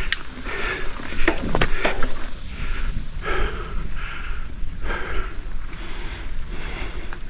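A mountain biker breathing hard and rhythmically while pedalling uphill, about one breath a second. A few sharp clicks and rattles from the bike come about one to two seconds in.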